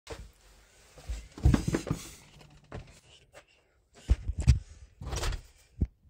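A door being opened: a series of irregular knocks, thumps and rustles, ending in a sharp knock.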